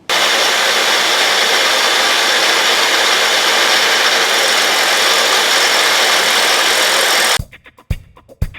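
Angle grinder with an abrasive wheel running and grinding material, a loud steady hiss. It cuts in abruptly and stops suddenly near the end, where music with a drum beat takes over.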